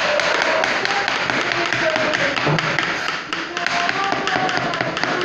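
Kitchen knife chopping gourd on a plastic cutting board: rapid, irregular taps of the blade against the board.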